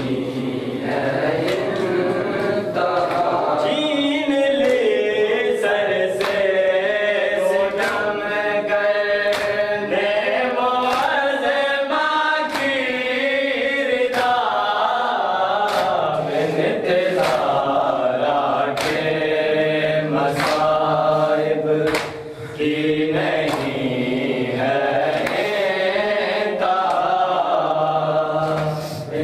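Men's voices chanting a nauha mourning lament, with sharp hand slaps of chest-beating matam about once a second.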